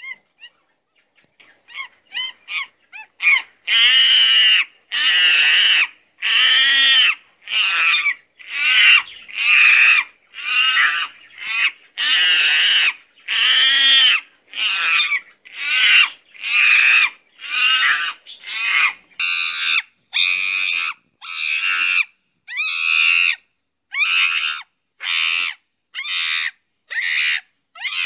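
A primate shrieking over and over, high-pitched screeches about once a second that build from faint to loud over the first few seconds, then turn shorter and quicker after about 19 seconds.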